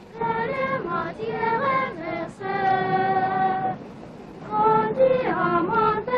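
High-pitched singing: a melody of short stepping notes, then one long held note, a brief lull, and more quick notes.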